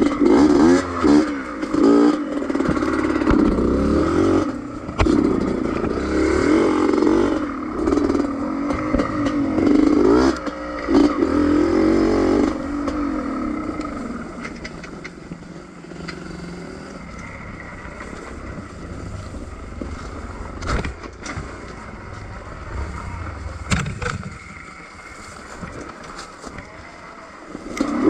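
Two-stroke 125 cc dirt bike engine revving up and down hard over a rough trail, with occasional knocks and rattles from the bike. About halfway through it drops to a quieter, lower, steadier run.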